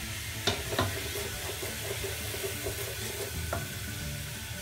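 Chicken, onion and tomato masala sizzling and frying in a nonstick pot while a plastic spatula stirs it, as the masala cooks down. A few sharp clicks of the spatula against the pot come about half a second in, just before one second, and about three and a half seconds in.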